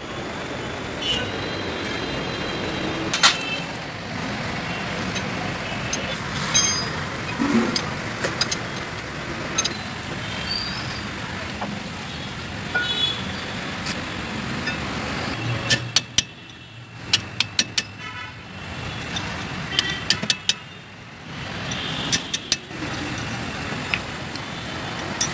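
Metal hand tools clinking and tapping against a van's front wheel hub and brake parts, with a run of sharp clicks past the middle, over steady traffic noise.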